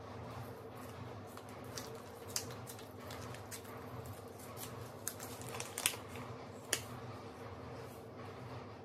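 Paper seed packets being opened and handled, giving a handful of short sharp crackles, mostly in the middle, over a steady low hum.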